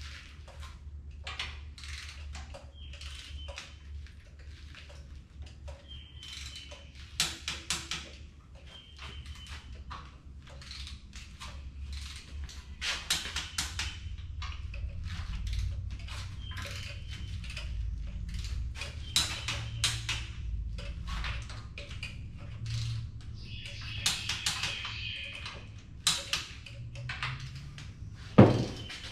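Hand torque wrenches ratcheting and clicking in short runs as cylinder-head bolts on an engine are torqued down, over a steady low hum. A sharp metallic clank near the end is the loudest sound.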